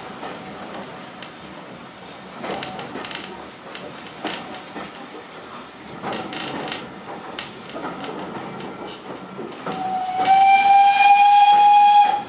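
Railway carriage running along the line behind a Peckett saddle-tank steam locomotive: a steady rumble with irregular knocks and clatter. About ten seconds in, the locomotive's steam whistle sounds one long blast, rising slightly in pitch, loud over the running noise, and cuts off sharply.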